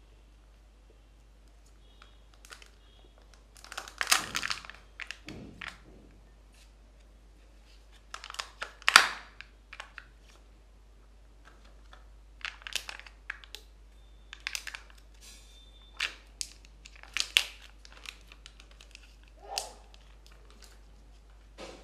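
A Kinder Joy egg's plastic shell being split open and the foil seals peeled off its two halves: short bursts of plastic crackling and foil crinkling with quiet gaps between, loudest about 4 and 9 seconds in.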